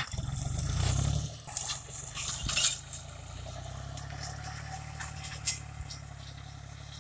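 Tractor engine running steadily under load while pulling a cotton-stalk removal implement through a row of dry stalks. Scraping and rattling noises come through over the engine, loudest in the first few seconds, before it settles to a steady run.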